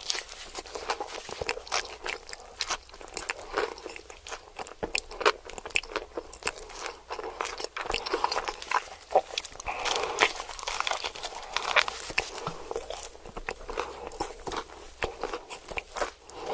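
Close-miked eating: a person biting and chewing crunchy food, with many irregular crisp crunches and wet mouth sounds.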